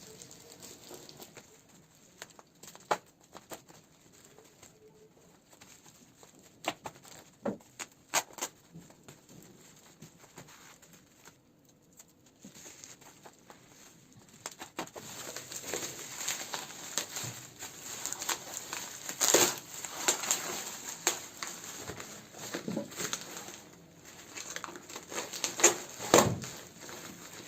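Layered parcel packaging being unwrapped and pulled open by hand: scattered rustles and clicks at first, turning into denser, louder crinkling and tearing from about halfway through.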